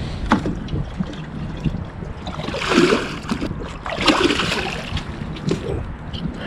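Water sloshing and gurgling as a plastic pail is dipped into shallow creek water. It is loudest in two surges, about three and four seconds in, with a few short knocks from handling the pail.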